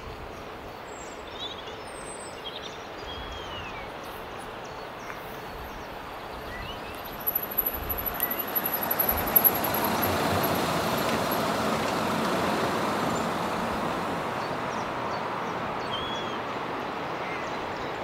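A motor vehicle passing along the road: its engine and tyre noise swells from about seven seconds in, peaks and slowly fades away. A few birds chirp in the first seconds.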